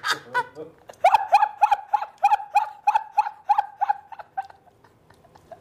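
A man laughing hard in a long, high-pitched run of rapid 'ha' pulses, about three a second, tailing off about four and a half seconds in.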